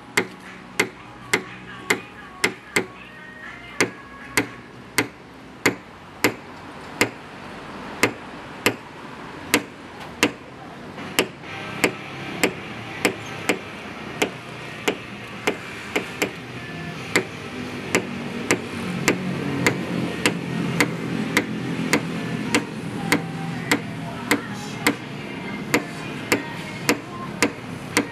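Sharp light taps on a car body panel, about two a second and slightly uneven, typical of a paintless dent repair tap-down hammer working a dent, over background music.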